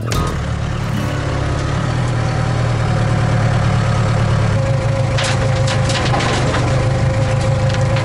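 Backhoe loader's diesel engine running, heard from the operator's seat, with a steady whine coming in about halfway. From about five seconds in, dirt and rock crunch and rattle as the raised front bucket dumps its load.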